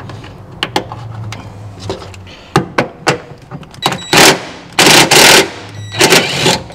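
A cordless impact driver hammers in three short bursts in the second half, backing out a trim-panel screw that feels like it might have been cross-threaded. Before that there are a few sharp clicks and knocks of hands and tool on the plastic trim.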